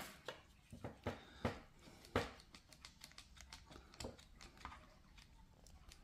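Irregular small clicks and taps, about ten of them, fewer and fainter after the first few seconds. They come from handling a Swiss Army pocket knife with aluminium scales and a plastic one-hand bar clamp.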